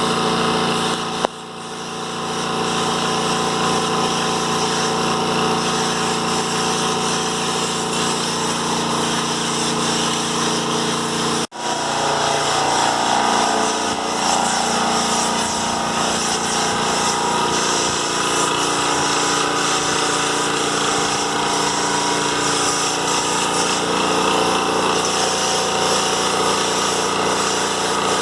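Motor of a power tool running steadily, with two brief breaks, about a second in and about halfway through, where the sound changes slightly.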